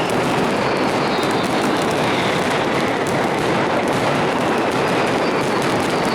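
Fireworks going off in a dense, continuous barrage: a steady rumble full of fast crackling, with faint whistles gliding down in pitch.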